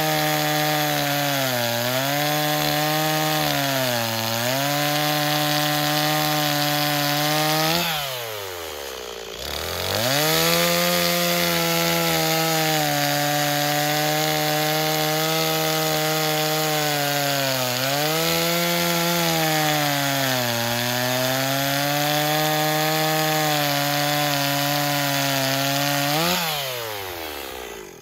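Stihl MS260 two-stroke chainsaw at full throttle cutting through oak logs, its pitch dipping briefly each time the chain bites under load. About eight seconds in, the revs fall away as the throttle is let off, then climb back for the next cut; near the end the revs drop again and the engine sound falls away.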